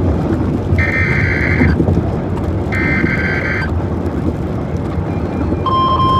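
Emergency Alert System SAME header: two roughly one-second bursts of warbling digital data tones, the last of the header's three, followed near the end by the steady 1050 Hz weather-radio warning alarm tone. A constant low rumble or noise runs underneath. Together these mark the start of a new alert.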